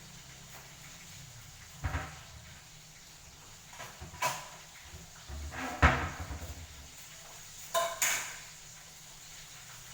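Kitchen handling sounds: four separate bursts of knocking and clatter, like cupboards, drawers or pots being handled. The third, a little before the middle, is the loudest.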